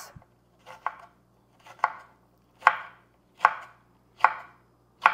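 Kitchen knife slicing serrano chiles into thin rings on a wooden cutting board. The blade knocks on the board at a steady pace, a little faster than once a second, about six cuts.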